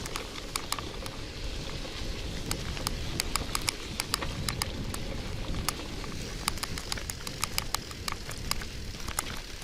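1980 KhVZ bicycle riding over a wet, muddy dirt track. Its tyres give a low, steady rumble through mud and water, with many sharp clicks and rattles throughout.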